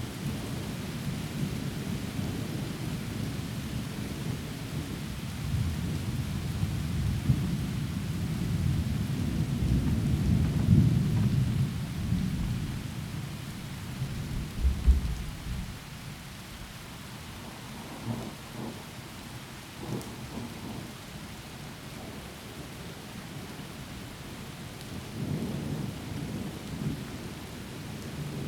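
Heavy rain hissing steadily in a forest, with rolling thunder under it. The rumble builds to a loud peak about ten seconds in. A sharp thunderclap comes about fifteen seconds in, then it eases to softer, scattered rumbles.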